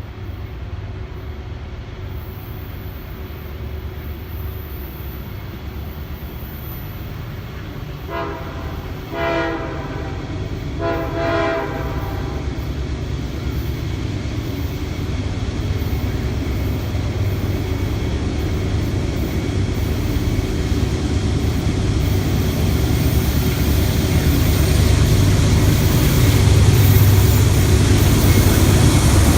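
A train horn sounding two short blasts, about a second apart, over the low rumble of a train that grows steadily louder as it approaches.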